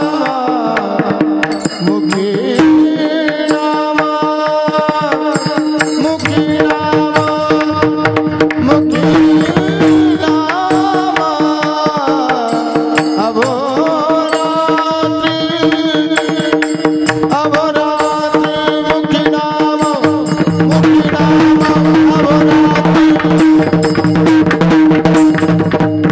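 Varkari kirtan music: a man singing a devotional tune over a steady held drone, with hand-drum strokes and the clashing of small brass hand cymbals (taal) keeping the beat.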